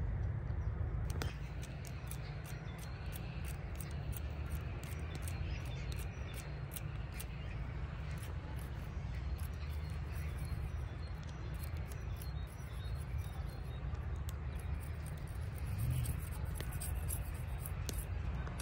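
A small blade whittling a thin wooden stick: many short, irregular scraping cuts, starting about a second in, over a steady low rumble.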